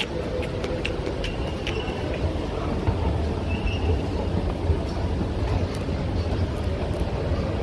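Escalator running: a steady low rumble from its drive and moving steps, with a few light clicks in the first two seconds.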